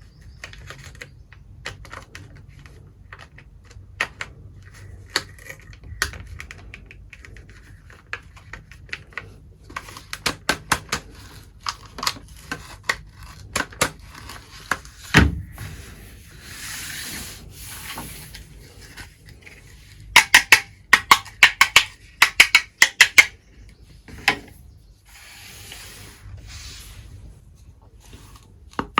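Tiny toy kitchen pieces being handled, with scattered light clicks and taps and one heavier knock. A run of quick taps comes about two-thirds through. Two short stretches of rubbing hiss come near the middle and near the end.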